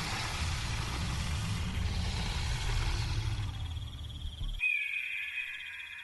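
Animated intro sound effects over a steady, pulsing cricket chirr: a loud, low, rough rumble that stops abruptly about four and a half seconds in, then a high, slightly falling tone.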